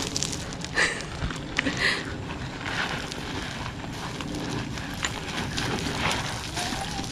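Footsteps crunching on loose river gravel and cobbles as several people walk, an uneven run of crunches and scrapes.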